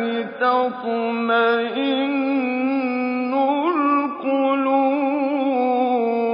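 A man's voice reciting the Quran in melodic tajweed, drawing out the word 'tatma'innu' in long held notes with ornamented turns and a few short breaks for breath.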